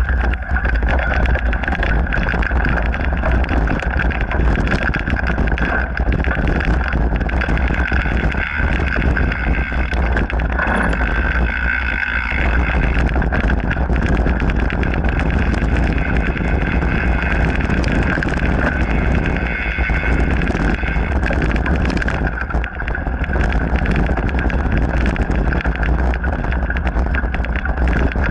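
Mountain bike riding over a dirt forest trail, recorded by an action camera: low wind rumble on the microphone with tyre noise and frequent short rattles and knocks as the bike goes over bumps.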